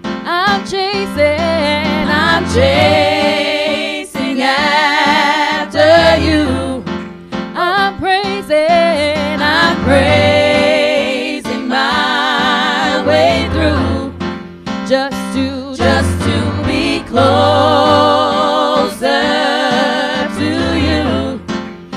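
Gospel worship song: three women singing together into microphones with a wide vibrato on held notes, over chords on a digital piano.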